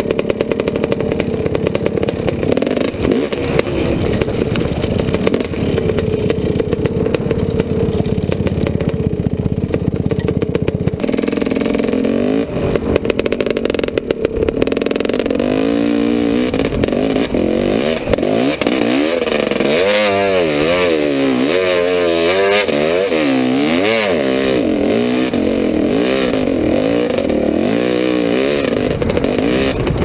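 KTM 250 enduro dirt bike engine running at a fairly steady low pitch for the first dozen seconds. From about halfway it is revved up and down over and over as the throttle is worked through the rocks.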